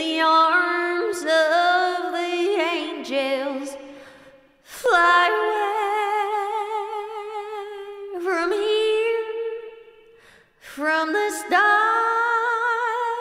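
A woman singing a slow ballad melody unaccompanied, in long held notes with vibrato, broken by two short pauses for breath.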